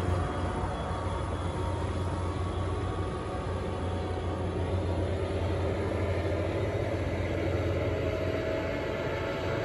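NJ Transit commuter train pulling away from the platform, cab car at the rear: a steady low rumble of wheels on rail and the distant locomotive, with a faint whine entering near the end.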